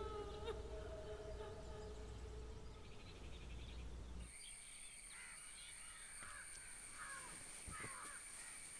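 Faint outdoor ambience: a steady high-pitched insect drone and several short, falling bird calls, after the last faint tones of background music die away in the first few seconds.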